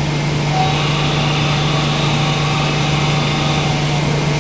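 Nakamura AS200L CNC turning centre cutting aluminium under flood coolant: a steady machine hum with an even hiss of coolant spray.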